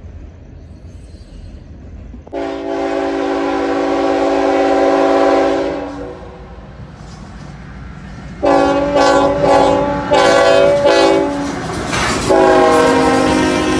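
CSX diesel freight locomotive's multi-note air horn, over the rumble of the passing train. A long blast starts about two seconds in, then a run of shorter blasts, and a final long blast begins near the end.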